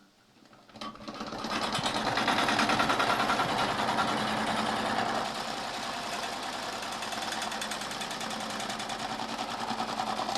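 Electric fan switched on, spinning up over about a second and then running steadily with a fast, even mechanical rattle.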